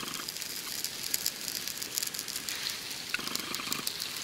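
Small fire of fatwood strips and dry bark just catching, crackling with a steady hiss.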